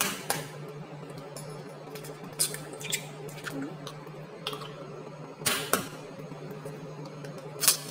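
Eggs being cracked on the rim of a stainless steel mixing bowl: a series of sharp taps and shell clicks, with the loudest knocks about five and a half seconds in and just before the end. A steady low hum runs underneath.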